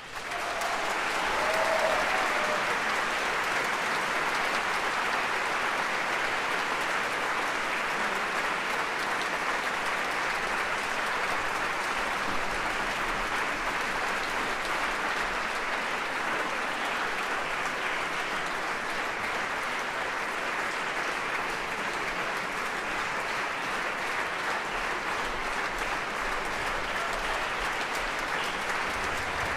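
Concert-hall audience applauding after the end of an orchestral opera aria, building up over the first two seconds and then holding steady.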